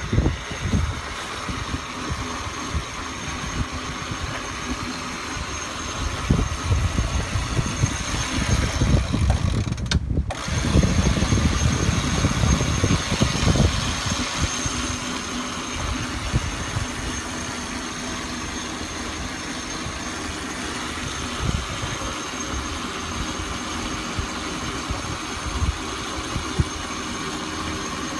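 Wind buffeting the microphone on a sailing catamaran's deck, over the rush of the sea, heaviest from about six to fourteen seconds in, with a brief dropout about ten seconds in.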